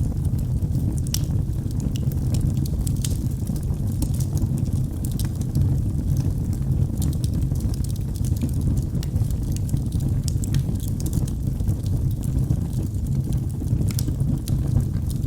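Wood fire in a fireplace crackling, with frequent sharp irregular pops and snaps over a steady low rumble.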